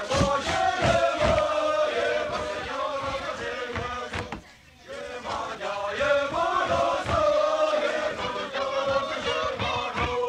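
A line of dancers singing a chanted song together, with low thuds of stamping feet keeping time. The singing drops out briefly a little under halfway through, then resumes.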